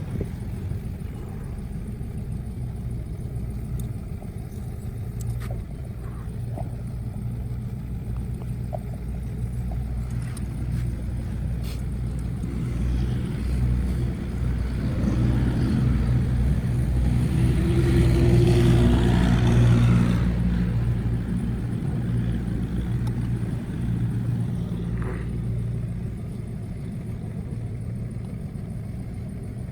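A motor running steadily with a low hum, swelling louder for several seconds in the middle before settling back, with a few faint clicks.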